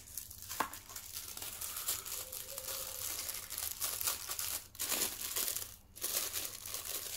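Packaging being handled and crinkled as a phone case is taken out of its box, with a sharp click about half a second in and brief pauses near the five- and six-second marks.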